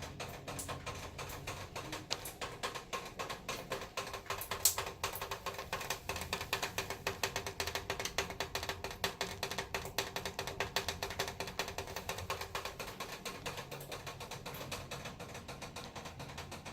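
Heavy typhoon rain tapping hard and fast against the window, with dense, irregular taps and drips. A faint steady hum runs through the middle.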